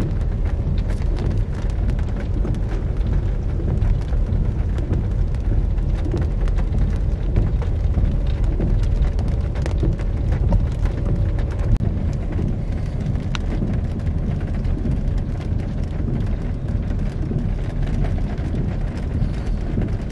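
Pouring rain falling on a car's roof and windshield, heard from inside the moving car: dense scattered raindrop taps over the car's steady low rumble.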